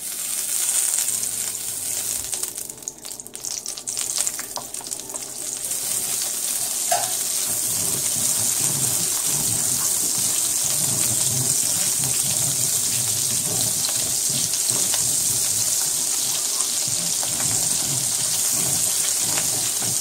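A tablespoon of butter melting and sizzling in about a teaspoon of hot oil in a frying pan, stirred with a wooden spoon. The sizzle builds over the first few seconds and then holds steady.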